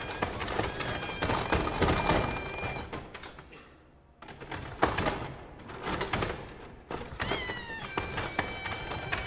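Table-football table played as a percussion instrument: rapid clattering knocks and clicks of rods and ball, mixed with a few steady high tones. It drops almost to silence about four seconds in and comes back with a sharp knock. A short gliding pitched sound follows about seven seconds in.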